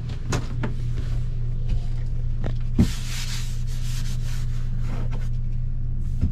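Steady low hum of an RV air conditioner running, with a few light knocks and a brief rustle about three seconds in.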